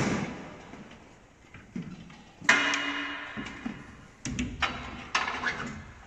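Metal parts being handled: a series of sharp clanks and knocks. The loudest comes about two and a half seconds in and rings briefly, followed by a cluster of quicker knocks near the end.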